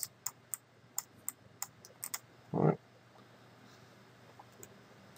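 A string of light computer-mouse clicks, about three a second, over the first two seconds, with a brief hum from a voice about two and a half seconds in; then only faint background hum.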